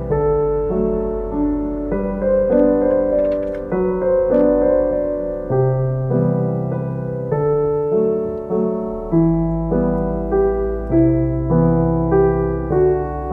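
Background piano music: a melody of short notes that fade after each strike, over a low held bass.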